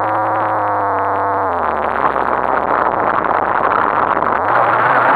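RC car motor running, heard muffled through the action camera's sealed housing mounted on the car. A steady pitched hum gives way after about a second and a half to a rough, rattling rumble as the car drives over bumpy dirt. The hum comes back, rising, near the end.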